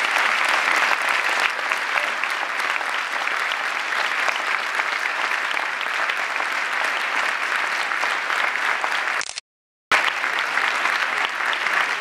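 Large audience applauding steadily, a dense clatter of many hands clapping. The sound cuts out completely for about half a second near the end, then the applause carries on.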